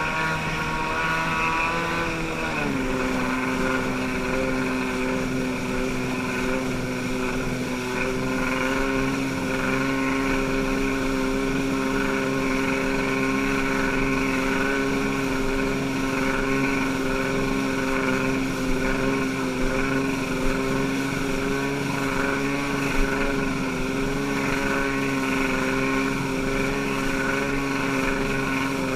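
A boat's engine running steadily while under way. Its pitch drops about two seconds in, then holds steady.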